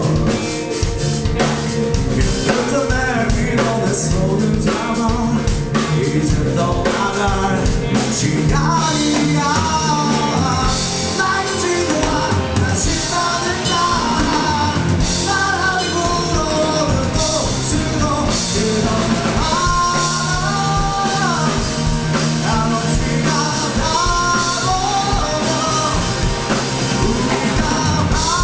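Rock band playing live: drum kit and guitars, with a melodic lead line (vocal or guitar) running over them from about a third of the way in.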